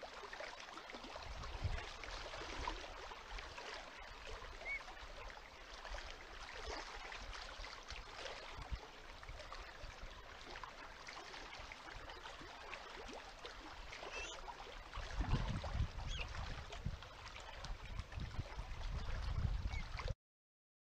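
Steady outdoor wind hiss, with low wind buffeting on the microphone from about fifteen seconds in, and a couple of faint short chirps. The sound cuts off abruptly just before the end.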